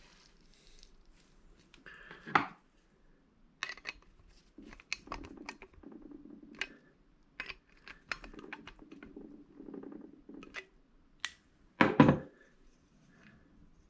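Small metal door-latch parts being handled: scattered clicks and clinks with light rubbing, and two louder knocks, one about two seconds in and one near the end.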